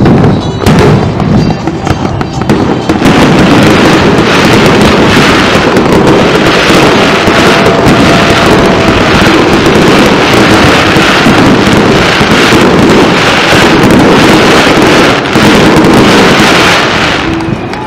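Aerial fireworks: a couple of separate shell bursts, then about three seconds in a dense, continuous barrage of booming bursts and crackle that goes on for some fourteen seconds and dies away near the end, the rapid-fire close of the display's finale.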